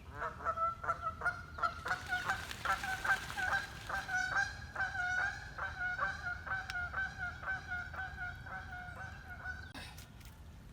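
Waterfowl giving a long, rapid run of loud honking calls, about two or three a second at a steady pitch, that stops about a second before the end.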